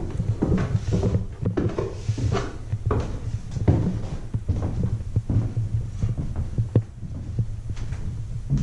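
Irregular low thumps, knocks and rubbing from a handheld or body-worn action camera being carried while walking, with footsteps on a wooden floor, over a steady low rumble.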